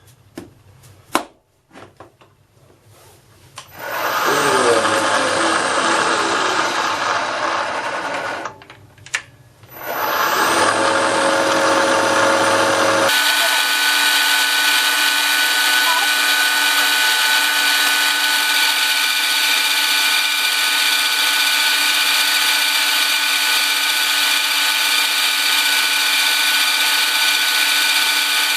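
A few light clicks, then a milling machine's motor and cutter start about four seconds in and run loudly on stainless steel, stop briefly near nine seconds and start again. From about thirteen seconds the sound turns into a steady, even whir with no low rumble.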